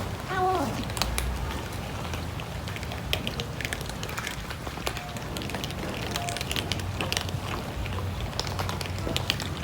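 Cats eating, with many small, irregular crackling clicks of chewing. A short falling cry comes about half a second in.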